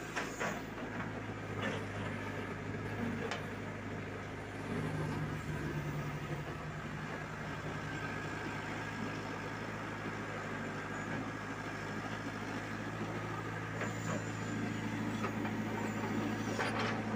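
Backhoe's diesel engine running steadily while its bucket digs in the pit, the engine note stepping up about five seconds in. A few short knocks sound over it.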